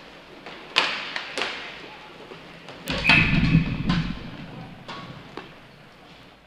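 Inline hockey sticks, puck and boards knocking in a series of sharp clacks that echo in the rink hall, with a louder cluster of knocks and thuds about three seconds in.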